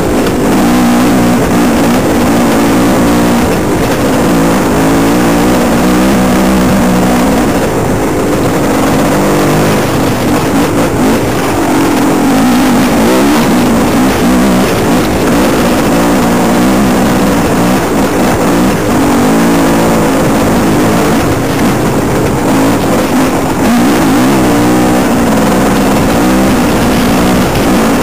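Off-road motorcycle engine running loud and close, its revs rising and falling again and again with the throttle as it rides a rough trail.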